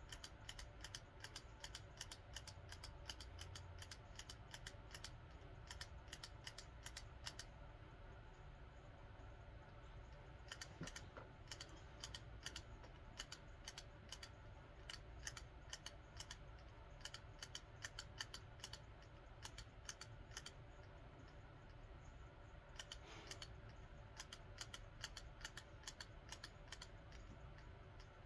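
Spring hand gripper squeezed in quick repetitions: faint rapid clicks, about four or five a second, in runs with short pauses between, over a low steady hum.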